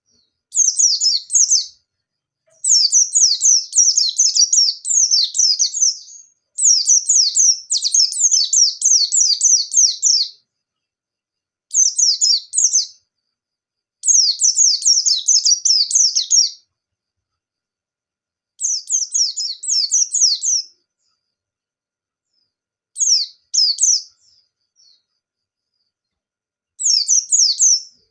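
Pleci (white-eye) in full song: rapid, high-pitched chattering bursts of one to four seconds, separated by short silent pauses, about eight phrases in all.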